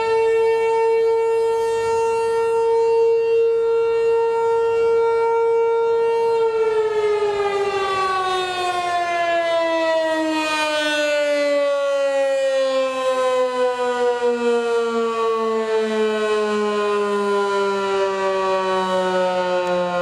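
American Signal T-128 rotating tornado siren sounding a steady wail during a test. About six seconds in it stops being driven, and the pitch falls slowly and smoothly as the rotor winds down.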